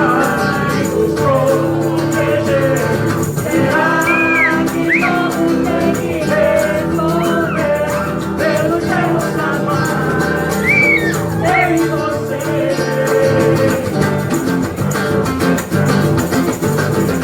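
Background music: a song with a sung melody gliding over steady held chords.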